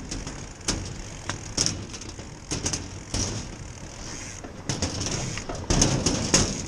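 Mountain bike rolling across a narrow footbridge deck: tyre rumble with irregular knocks and rattles from the deck and bike, busiest near the end.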